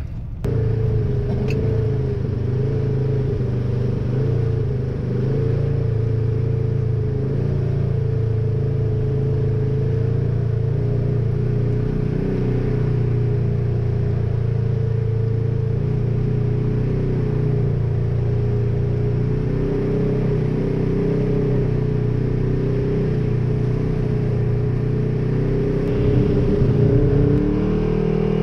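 Polaris RZR side-by-side engine running steadily at cruising speed while driving a dirt trail, its pitch almost unchanged throughout; the sound shifts briefly near the end.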